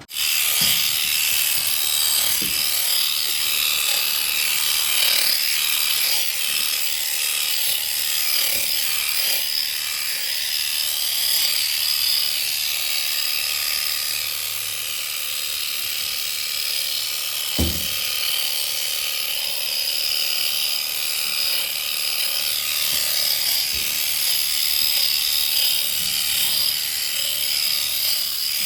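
Electric sheep-shearing handpiece running steadily, clipping dags from a lamb's rear end, with a single knock about 18 seconds in.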